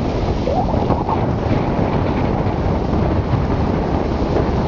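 Wind buffeting a camera's microphone during a bicycle ride: a steady, loud low rumble of rushing air.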